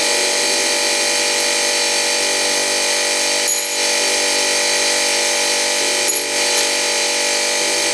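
Belt-driven bench drill press running with a steady whine while drilling holes in a flat steel strip. Two short, sharp sounds come about three and a half and six seconds in.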